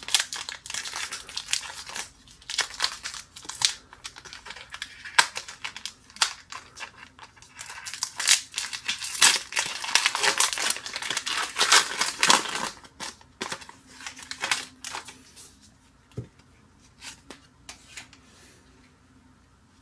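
Crinkling and tearing of a trading-card booster pack's plastic wrapper being opened, dense for the first dozen seconds or so. It is followed by sparser light clicks and taps of the cards being handled.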